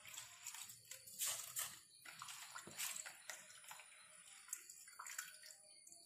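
Soaked rice being tipped from a bowl into a steel mesh strainer to drain: a series of faint, short wet splashes and trickles as the grains and water go in, with a hand pressing the wet rice near the end.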